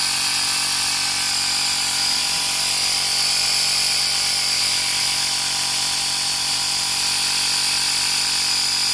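Workzone Titanium 20 V cordless air compressor running steadily, pumping air into a car tyre through its hose: a loud, even mechanical drone.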